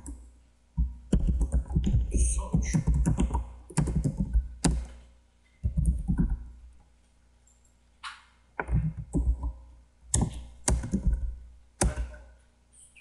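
Typing on a computer keyboard in quick bursts of keystrokes with short pauses between them, the clicks carrying a dull low thud.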